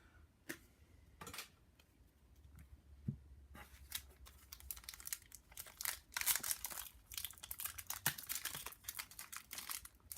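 A trading-card pack's foil wrapper being torn open and crinkled by hand. A few light clicks of card handling come first, then continuous crackly crinkling from about a third of the way in.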